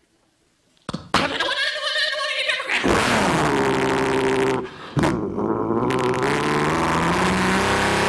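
A man's voice doing a mouth-made impression of a truck: a click about a second in, about two seconds of rough grinding noise, then a pitched engine note that sags, breaks off briefly, and climbs slowly, like a truck pulling away and accelerating.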